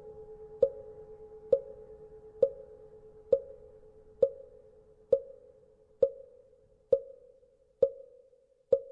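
A mõ (Buddhist wooden fish) struck at a steady, even pace, ten hollow knocks a little under a second apart, each with a short ring. Beneath it the lingering hum of a temple bell fades away over the first several seconds.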